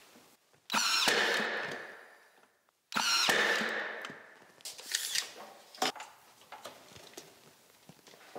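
Power saw making two short cuts through trim strips, each cut starting suddenly with a high whine that dies away over about a second and a half. A few lighter knocks follow near the end.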